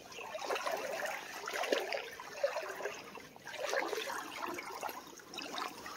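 Shallow creek water splashing and sloshing, an irregular run of small splashes and trickling.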